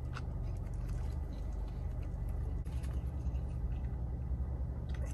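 A man chewing a bite of a crispy fried chicken sandwich with his mouth closed, faint crunches and clicks, over a steady low rumble inside a car.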